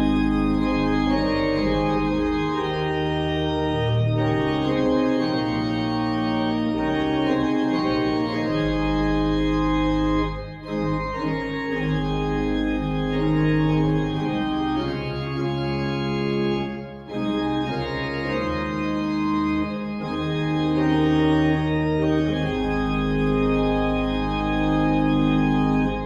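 Church organ playing slow sustained chords over deep pedal bass notes, with two brief breaks between phrases. The final chord is released at the very end.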